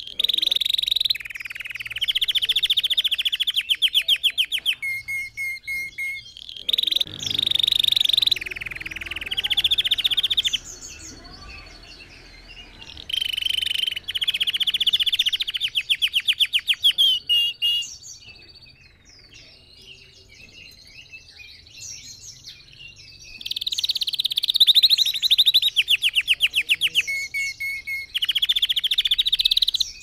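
Red factor canary singing: loud phrases of rapid trills and rolls, each lasting a few seconds, with short breaks between them. Past the middle, the song gives way to a stretch of soft, scattered twitters before it picks up again.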